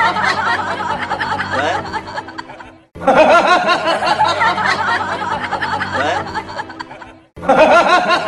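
Laughter, chuckling and snickering, over background music. The same short clip loops about every four and a half seconds and cuts out briefly before each restart.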